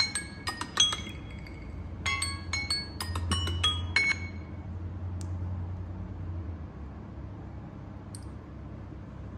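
Samsung Galaxy Note 20 timer alert ringing after time is up: runs of bright, bell-like chiming tones that stop a little after four seconds when the timer is dismissed. A single click follows about a second later.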